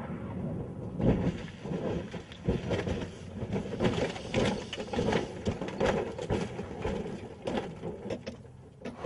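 Rally car crashing and rolling over: a run of irregular thuds and crunches as the bodywork hits the ground again and again.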